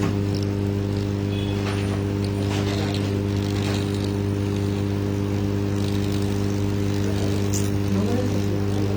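Steady low electrical hum at mains frequency from the repair-bench equipment, unchanging throughout, with a few faint clicks of tools being handled.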